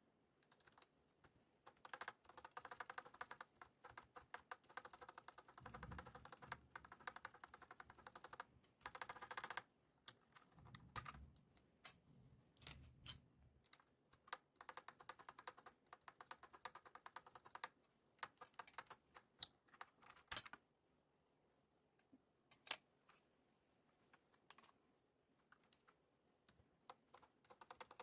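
Typing on a Redragon K596 Vishnu mechanical keyboard with Akko CS Lavender Purple tactile switches and HyperX PBT pudding keycaps: quick runs of keystrokes broken by pauses, then a few single key presses near the end.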